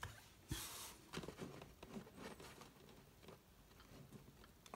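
Faint handling noise of a plastic Blu-ray case being picked up and held: a short rustle or scrape about half a second in, then scattered light taps and rubs.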